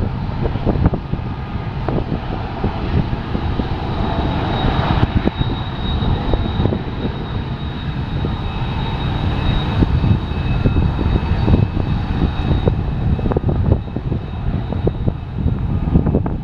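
BNSF freight train's diesel locomotives running with a steady low drone, with wind buffeting the microphone. A thin high squeal rings through the middle stretch.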